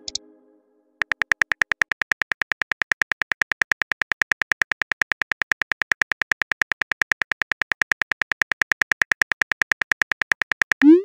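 Chat-app typing sound effect: a rapid, even string of short high clicks, about ten a second, as a message is typed character by character. A short rising sound comes near the end.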